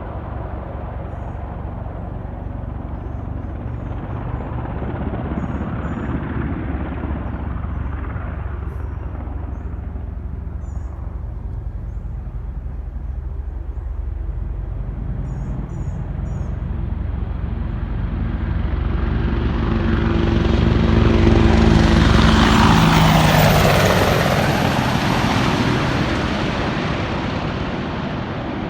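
Two Boeing AH-64 Apache helicopters' rotors and turbines making a steady low rumble. The sound grows louder to a buzzing pass about 22 seconds in, its pitch dropping as they go by, then fades.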